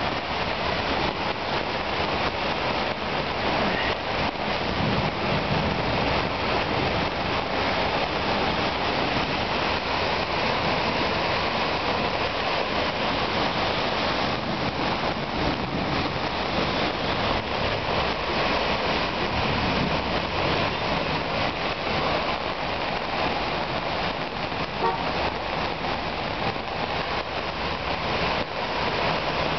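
Heavy rain and floodwater rushing down a sloping street, a steady wash of noise.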